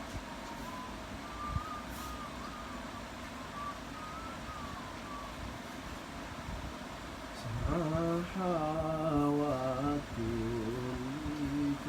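A man's voice humming or chanting a slow, wavering melody, starting about eight seconds in with a brief break near the end. Before it, a faint thin wavering tone sits over a steady background hum.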